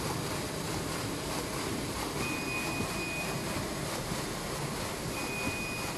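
Small automatic toilet paper roll band saw cutting machine running with a steady mechanical noise. A thin high whine comes in twice, for about a second and a half each time.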